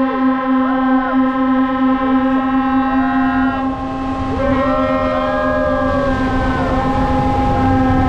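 Ship horns hold a long, steady blast while siren tones rise and fall over it, greeting a ship launch. From about four seconds in, the rush and splash of water grows louder as the hull slides into the sea and the launch wave surges up.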